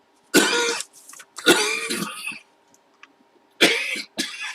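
A man coughing and clearing his throat, three times, over a faint steady hum.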